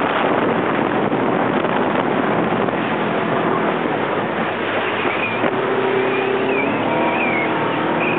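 Motorboat under way: a loud, steady rush of engine, wind and water. A few faint steady tones come in about five seconds in.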